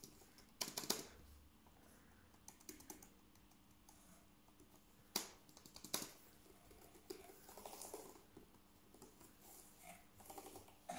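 Keys of an HP Omen 17 laptop keyboard being pressed by hand: scattered, quiet key clicks, with a few louder ones about five and six seconds in.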